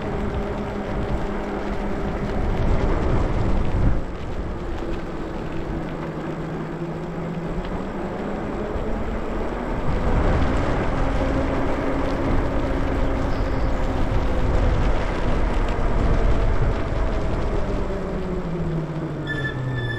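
Lyric Graffiti e-bike riding on wet pavement: wind on the microphone and tyre noise, with the electric motor's whine rising and falling in pitch as the speed changes. Near the end the pitch falls as the bike slows, and a brief high squeal comes in.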